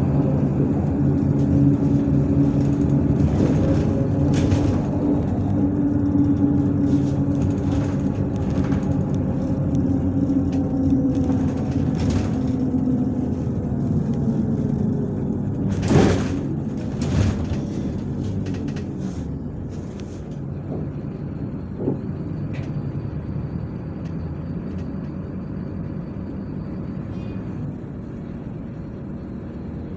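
MAZ-103 city bus heard from inside: engine running with road rumble, its note falling as the bus slows about halfway through, with two sharp knocks around then, after which the engine runs more quietly and steadily.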